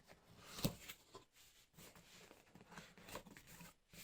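Helmet's cardboard box being handled and opened: faint scattered scrapes, rustles and taps, with one louder knock about half a second in.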